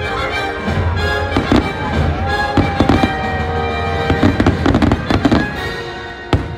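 Fireworks shells bursting in uneven clusters of sharp bangs and crackles, over the show's patriotic orchestral music playing through the park loudspeakers.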